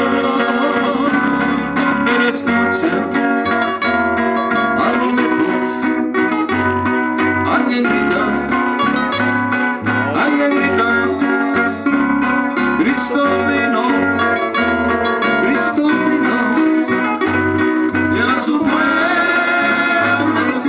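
A small live group playing a gospel song on strummed acoustic guitars over a pulsing bass line, with singing over it in places.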